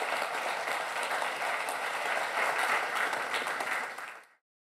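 Conference audience applauding, a dense patter of many hands clapping, fading out about four seconds in.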